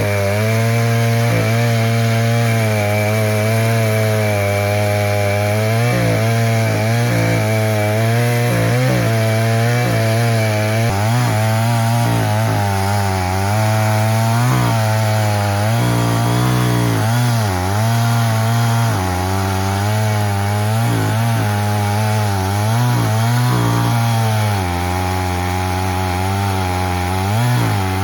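EFCO chainsaw on an Alaskan mill running at full throttle while ripping a log lengthwise into boards. The engine note holds steady at first, then dips and recovers again and again as the chain loads up in the cut.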